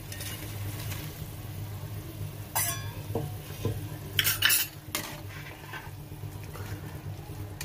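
Fried potato cubes tipped from a steel bowl into a kadai of boiling buttermilk gravy, then stirred with a steel slotted ladle that knocks against the pan several times, over the bubbling of the gravy.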